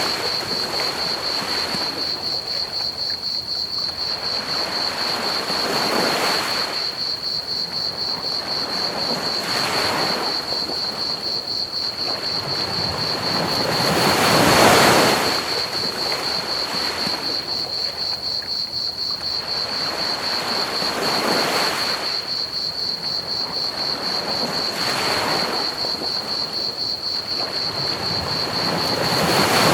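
Ocean waves washing onto a beach, surging louder every few seconds, with the biggest swells about halfway through and at the end. Under them runs a steady, rapid high trill of crickets and a constant hiss of pink noise.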